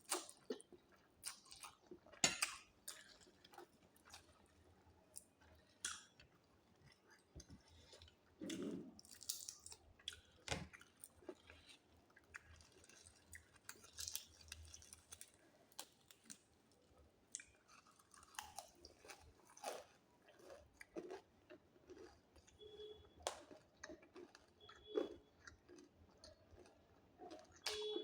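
A person chewing and biting into crunchy fried chicken, with scattered crunches and small clicks.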